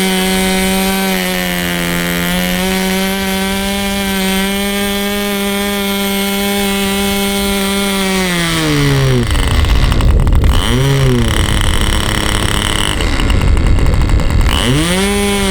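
OS Max 30 two-stroke glow engine on a model airplane running at a high, steady pitch. About eight seconds in it is throttled down, then its pitch rises and falls twice.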